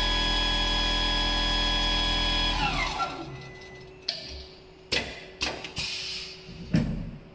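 CNC pattern sewing machine with a 360-degree rotating head, stitching at a steady speed with an even mechanical hum. About two and a half seconds in, the hum drops in pitch and winds down to a stop. It is followed by several sharp mechanical clicks and knocks, the loudest near the end.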